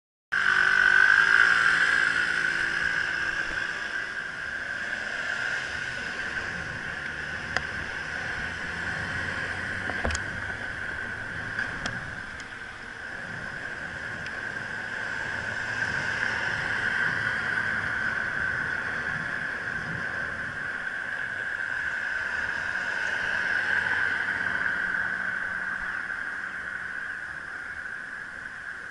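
Riding noise of an electric bicycle climbing a steep street in traffic: a steady high whine and hiss with road rumble. It is loudest as the bike pulls away in the first couple of seconds, when a low engine hum is also heard.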